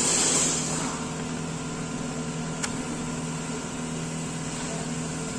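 A steady machine hum runs underneath, with a short scraping rustle at the start and one sharp click about two and a half seconds in, as the engine control module is pulled out of its bracket.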